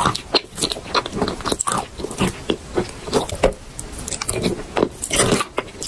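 Biting and chewing a pink Zhetysai chalk bar coated in wet chalk paste: a run of irregular wet crunches and crackles, several a second.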